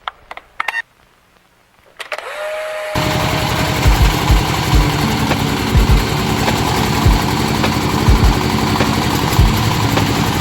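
Engine of a water well drilling machine starting up about two seconds in after a few sharp clicks, then running loudly and steadily with an even fast pulse and heavy low thumps about once a second.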